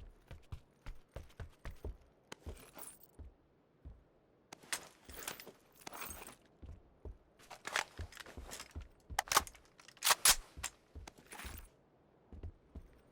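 Irregular clicks, taps and short scrapes of computer hardware being handled during a PC build, with a few louder rustling scrapes about five seconds in and again around eight to eleven seconds.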